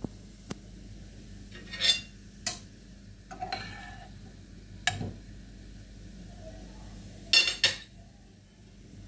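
Several sharp clinks and clatters of hard objects knocking together at irregular intervals, the loudest pair about three-quarters of the way through, over a low steady hum.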